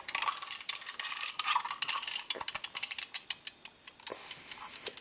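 Wind-up mechanical kitchen timer being turned by hand: the dial ratchets with a quick run of clicks, then slower, sparser clicks as it is set, and a short buzzing rattle for under a second near the end.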